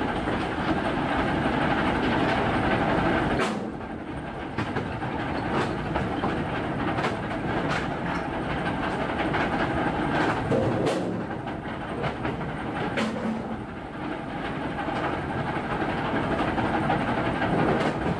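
Heavy machinery running steadily, a boom-and-bucket machine dumping material into a steel hopper, with irregular sharp clanks and bangs over the steady noise.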